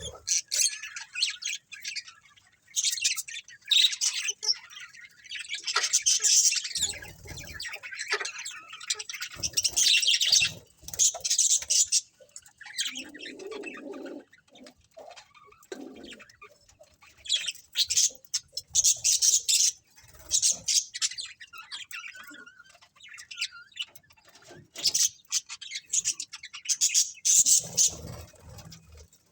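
A flock of budgerigars chirping and chattering in irregular bursts of high, rapid calls, with short lulls between them.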